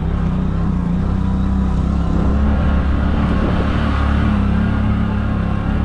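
Motorcycle engine running steadily as the bike rides along, heard from on the bike, with a steady low rumble.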